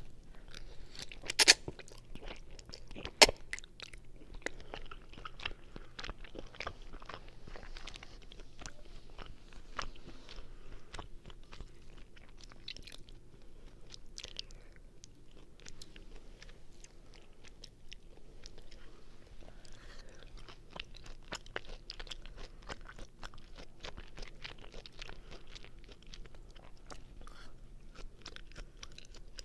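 Close-miked chewing of linguine carbonara, a steady run of wet mouth clicks and smacks, with two sharper, louder clicks in the first few seconds.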